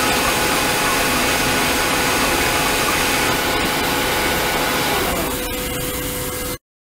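Water jetting from a nozzle into an ultrasonic cleaning tank, with a steady machine hum carrying a few held tones; it cuts off suddenly near the end.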